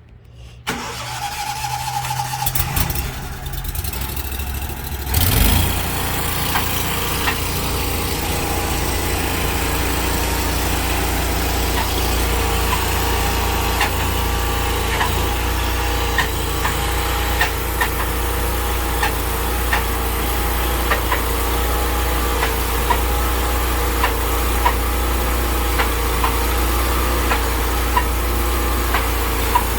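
Sawmill engine starting and then running steadily, with a louder surge about five seconds in and faint regular ticks over the steady hum.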